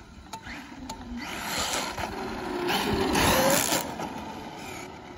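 Traxxas Maxx RC monster truck with a brushless motor on a 4S LiPo running past on a wet road: a building hiss of tyres on wet tarmac with a short rising motor whine, loudest about three seconds in, then fading away.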